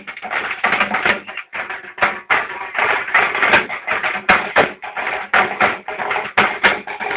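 Loud crowd din cut by many rapid, irregular sharp cracks and knocks.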